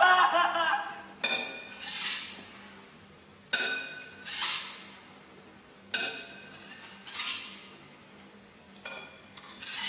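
Long knife blade stroked against a sharpening steel, four times over: each stroke a sharp metallic clink with a ring, followed by a higher swishing scrape.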